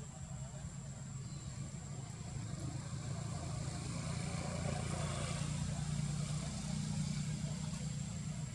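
Low, steady engine rumble, growing louder from about three seconds in, with a faint steady high tone above it.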